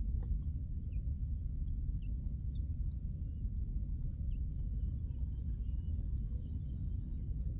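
Steady low rumble of wind on the microphone, with faint short high chirps now and then.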